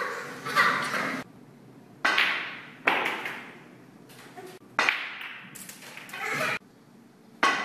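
Whoosh sound effects: about six sudden swishes, each fading out over most of a second, one of them a rising swell that cuts off sharply.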